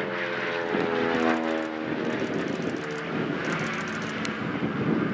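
Cessna R182 RG single-engine propeller plane passing low overhead, its engine and propeller droning with a pitch that drops slightly as it goes by, then blending into a rushing noise in the second half.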